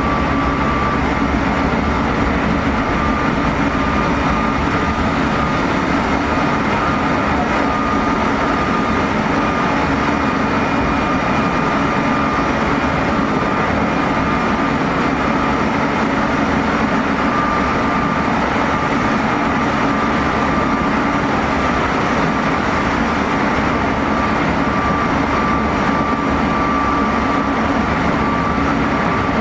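Interior running sound of a Meitetsu 3500 series electric train (GTO-VVVF, Toyo Denki equipment) heard inside a motor car at a steady speed. There is a constant rumble of wheels on rail, with a steady high-pitched whine over it that holds one pitch throughout.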